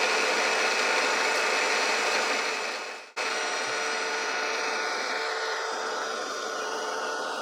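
Milling machine running steadily, a machine hum with a few constant tones, while scale lines are engraved. The sound fades and cuts out about three seconds in, then comes back slightly quieter.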